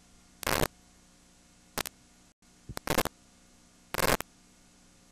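Videotape static between recorded takes: about five short bursts of harsh hiss over a faint steady electrical hum, with a very brief dropout to silence a little past two seconds in.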